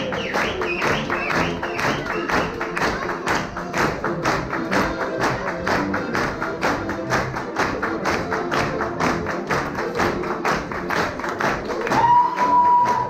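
Live folk dance music from a small band with accordion and brass. Over it runs a fast, even clatter of about five strikes a second as the dancers keep the rhythm. Near the end a voice calls out with a held high cry.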